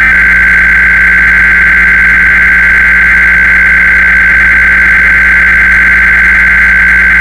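Emergency Alert System SAME header data tones: a loud, harsh, high-pitched digital screech held without a break, the signal that opens an EAS alert.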